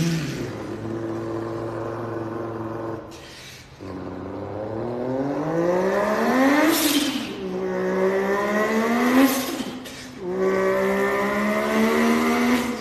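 A man's voice imitating a sports car engine: a steady engine drone that cuts out briefly, then two rising revs, then a steady drone again.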